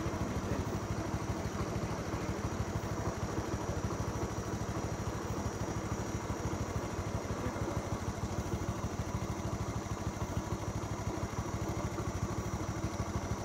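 A vehicle engine idling steadily, with a fast, even low throb that holds the same pace throughout.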